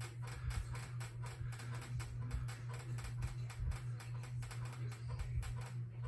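Encon Monarch ceiling fan running on high speed: a steady motor hum with a rhythmic ticking about four times a second.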